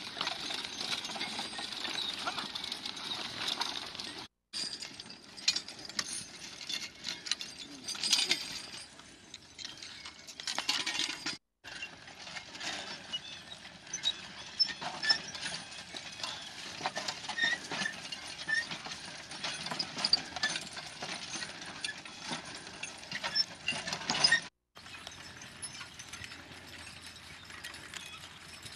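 A horse and mule plow team at work: hoof steps and the clink and rattle of harness chains and plow hardware, as a run of short irregular clicks and jingles. The sound drops out briefly three times where the footage is cut.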